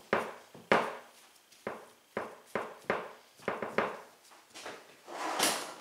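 Hands patting and pressing a ball of pastry dough flat into a disc on a marble pastry board: a run of soft, irregular slaps and taps, about two a second.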